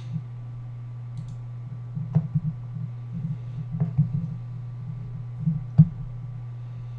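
Steady low electrical hum with a faint steady higher tone, broken by scattered soft clicks and knocks from about two seconds in, the sharpest one near six seconds in.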